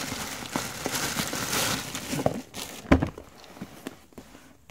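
Clear plastic wrapping crinkling as it is pulled off a cardboard phone box, with one sharp knock just before three seconds in, after which the handling is much quieter.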